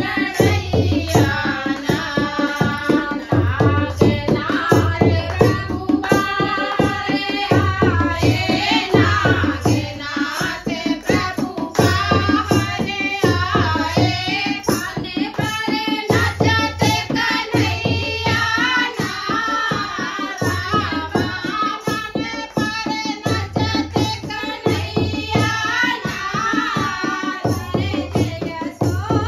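Women singing a kajri folk song together, accompanied by a dholak drum beating a steady rhythm, hand clapping and the clicking of a plastic hand clapper.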